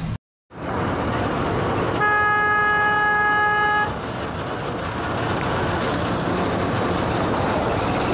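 A horn sounds one steady note for about two seconds, over a continuous rushing noise. The sound drops out completely for a moment right at the start.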